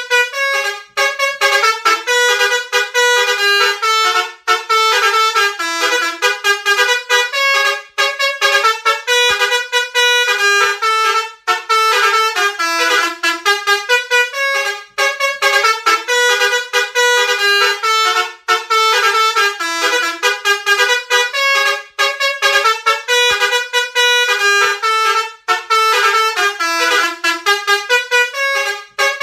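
Basuri 'telolet' multi-tone bus horn playing a fast melody, its notes stepping rapidly up and down with short breaks every few seconds.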